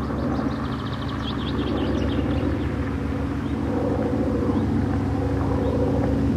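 Steady low engine rumble with a fast pulsing beat, joined by a brief run of high chirps about a second in.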